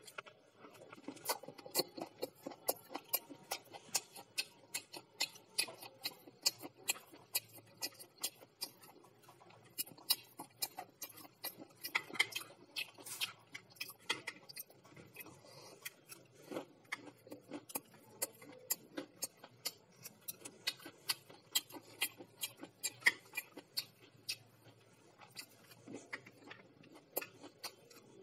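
Wooden chopsticks clicking and tapping against a ceramic plate while picking apart fried pakoras, in quick, irregular clicks a few times a second.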